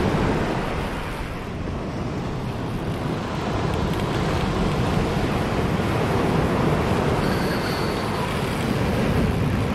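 Wind buffeting the microphone, a steady rumbling roar over the wash of surf breaking on the beach.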